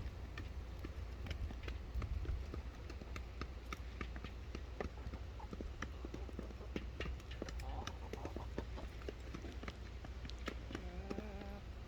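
Chickens pecking at feed: many quick, irregular taps, with a few short clucking calls in the second half.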